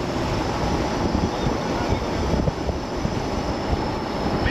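Wind buffeting the microphone of a camera on a moving vehicle, mixed with vehicle and road noise.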